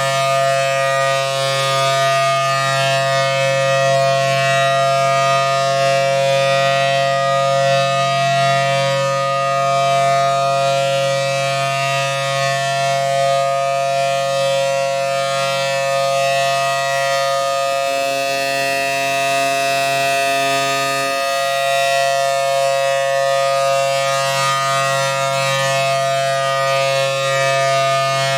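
Federal Signal Thunderbolt 1000T outdoor warning siren sounding a steady full-alert tone through its 4/5-port chopper. It holds a loud two-note chord at a constant pitch.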